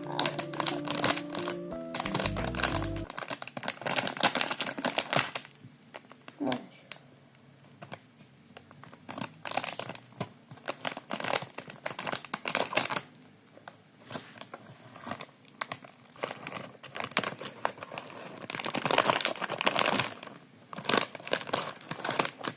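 Plastic snack wrapper crinkling and rustling in irregular bursts with quiet gaps as the bag is handled and opened. A short stretch of background music plays at the start and stops about three seconds in.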